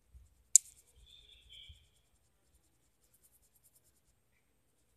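Blue felt-tip marker colouring on paper: a sharp click about half a second in, a brief high squeak just after, then faint scratchy strokes of the tip.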